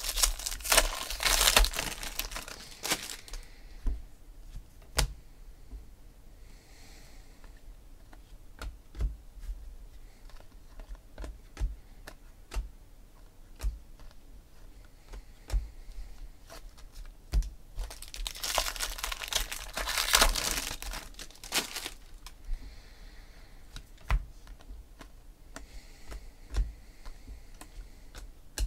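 Foil trading-card pack wrappers tearing and crinkling in two bursts, one at the start and another about 18 seconds in, with light clicks and flicks of cards being thumbed through in between.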